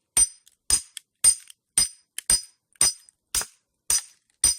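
Hammer striking the back of a hatchet set into a piece of firewood to split kindling: nine steady, ringing metallic blows, about two a second.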